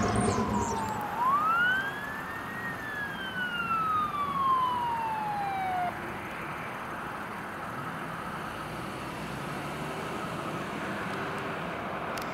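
Fire truck siren wailing: it rises quickly to a high pitch, then glides slowly down, and cuts off about halfway through. Steady road noise follows.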